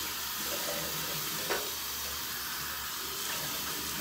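Bathroom sink tap running steadily, water pouring into the basin, with one light knock about a second and a half in.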